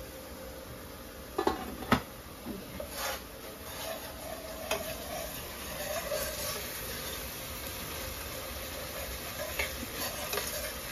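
A metal spoon stirring a mixture frying in a nonstick pan, clinking and scraping against the pan several times over a steady sizzle.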